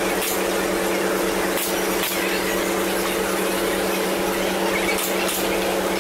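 A steady mechanical hum holding one pitch over a constant noisy background, with a few faint clicks.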